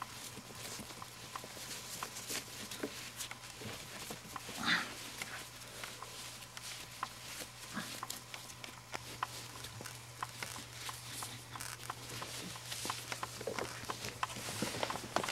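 Rope rubbing and rustling, with many small clicks, as a person tied up with it picks and pulls at the knots to work free, over a steady low electrical hum and a faint steady high tone. A short louder sound about five seconds in.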